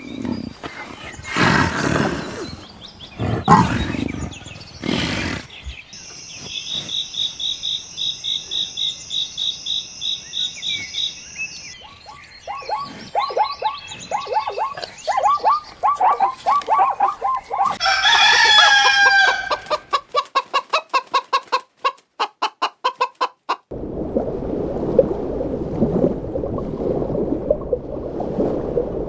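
Chickens clucking in a run of short calls, then a rooster crowing, the loudest sound in the stretch. Other farm sounds come in between: several broad bursts near the start, a fast run of clicks after the crow, and a rough steady noise in the last few seconds.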